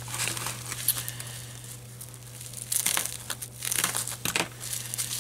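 Bubble wrap packaging crinkling and rustling as it is handled, in irregular crackles that are busiest from about three seconds in, over a steady low hum.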